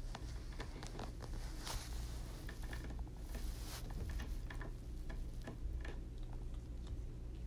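A cat gnawing on the top of a chair back: irregular small clicks and scrapes of teeth on the chair.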